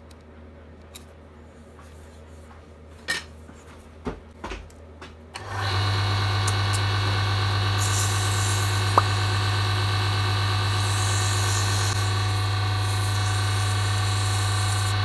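A few light handling clicks and knocks, then about five seconds in a wood lathe starts and runs steadily with a low motor hum and whine. Sandpaper held against the spinning cocobolo-and-epoxy pen blank adds a rubbing hiss during dry sanding. The sound stops abruptly near the end.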